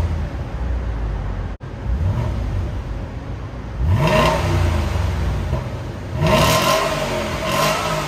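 2007 Volvo S80's 4.4-litre V8 heard from behind at the tailpipes, idling and blipped four times about two seconds apart. Each rev rises and falls back, and the middle two are the hardest. The car sits in a covered car park.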